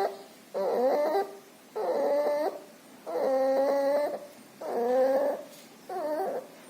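Puppy sick with pneumonia and distemper whimpering in a rhythmic series of pitched whines, about five in all, roughly one a second in time with its breathing. This is the loud noisy breathing of a puppy with pneumonia.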